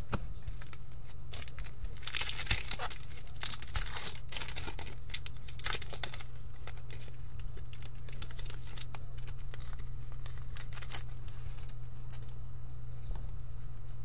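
Crinkling and tearing of a foil trading-card pack wrapper, in irregular bursts of crackly rustling with sharp clicks, loudest in the first few seconds and dying away near the end.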